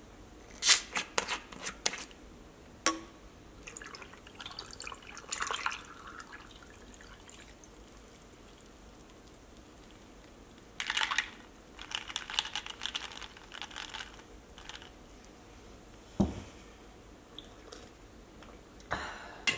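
A bottle of kombucha having its cap twisted open, a quick run of sharp clicks about a second in. Later it is poured into a glass of ice in two splashing stretches, with a single knock after the pouring.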